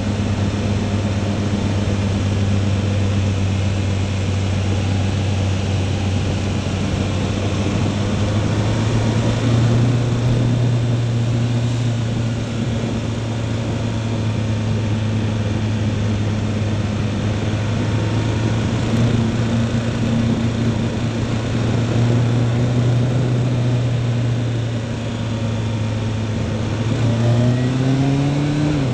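Motorcycle engine running steadily at a constant pitch under wind and road noise while riding downhill. Near the end the engine pitch climbs as the bike accelerates.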